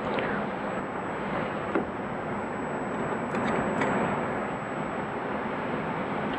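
Steady background noise with a few faint short clicks of small metal hardware being handled as a cotter pin is fitted.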